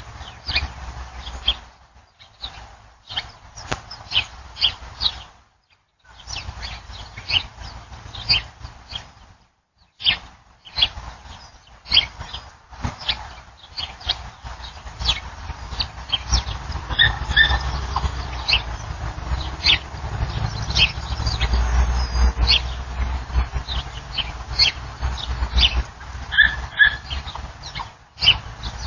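Backyard ambience picked up by a doorbell security camera's microphone: many short, high bird chirps over a low rumble, with the audio cutting out briefly a few times in the first ten seconds.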